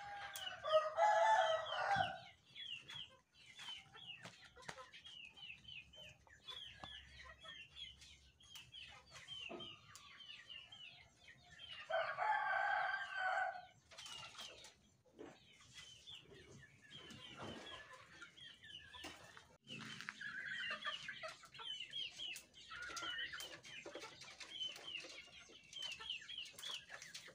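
Chickens: a rooster crowing several times, loudest near the start and about twelve seconds in, with clucking and quick high chirps in between.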